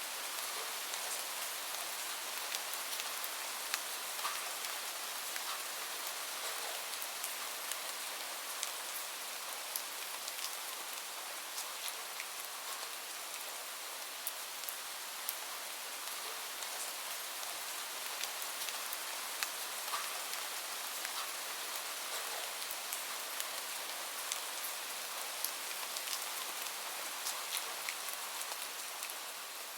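Steady rain falling, with many individual drops heard as sharp ticks over an even hiss.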